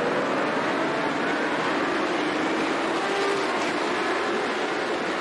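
A large pack of endurance racing motorcycles accelerating away together, many engines at high revs at once, their notes rising and blending into one dense, steady wash of sound.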